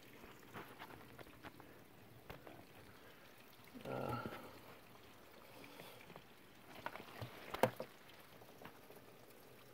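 Faint handling noise of a phone being propped up and positioned: scattered light clicks and rustles, a brief muffled scrape about four seconds in, and one sharp click about two seconds before the end.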